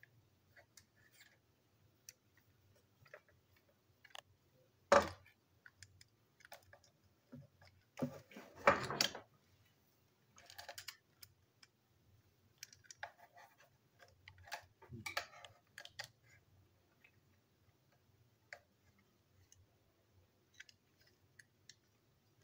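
Small clicks, scrapes and knocks of a screwdriver working on a plastic toy locomotive's body and screws as it is taken apart. There is a single sharp knock about five seconds in, the loudest rattling clatter of parts around eight to nine seconds, and a few shorter bursts of clicking after that.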